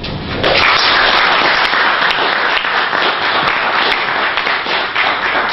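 Audience applauding, breaking out about half a second in and going on steadily.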